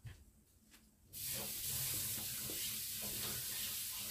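A steady hiss that starts about a second in.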